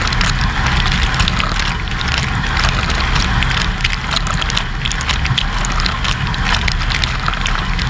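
AEG 145 S dishwasher running its wash, heard from inside the tub: water from the spray arms splashing and pattering over the dishes in a steady rush, with the circulation pump humming low underneath.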